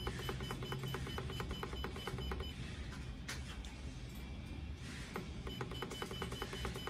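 JSW-11 digital temperature controller beeping in a rapid, even series of short beeps while its up button is held, as the set temperature steps upward. The beeping pauses for about two seconds near the middle, then resumes.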